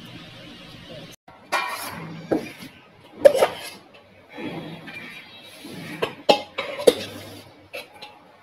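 Soft background music stops about a second in. Then a stainless steel bowl and dishes clink and knock several times, each a short, sharp ring spread over several seconds, as the rice is handled at the table.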